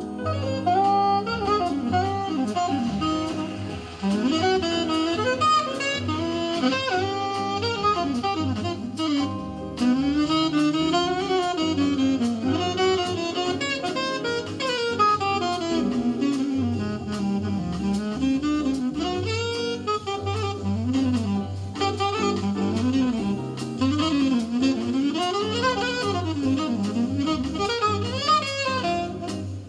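Bossa nova music played back through a homemade coaxial loudspeaker: an instrumental break, one melody line winding up and down over a steady bass.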